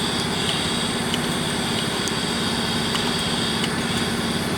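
Steady engine-like machine drone with a low hum and faint regular ticks.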